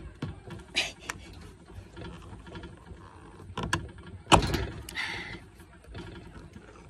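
Ring-pull sardine tin being opened under a dish towel: a few small clicks and scrapes as the pull tab is worked, then one loud pop about four seconds in as the lid's seal breaks, followed by a short scraping tear as the lid peels back.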